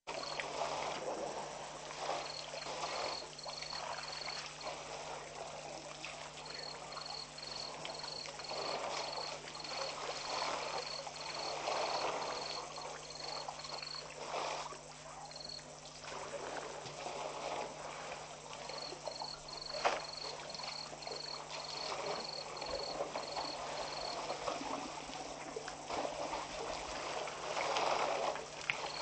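African elephants drinking at a waterhole: water splashing and trickling as trunks squirt it into their mouths, in uneven swells. Over it runs a high, even chirping at about two chirps a second, in long runs with pauses, and a faint steady low hum.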